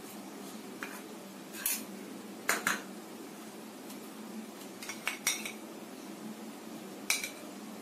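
Light, scattered clinks of kitchen utensils against crockery, about seven short sharp knocks in all, over a faint steady hum.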